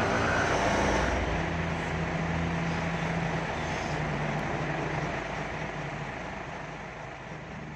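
Heavy diesel truck engine running steadily close by, with road traffic noise behind it; the sound slowly fades toward the end.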